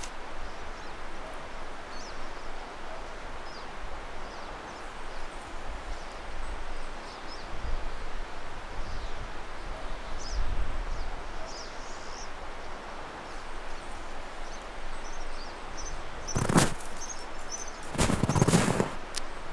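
Outdoor ambience of a snowy forest: a steady hiss and low rumble with faint bird chirps, then a few loud crunches near the end.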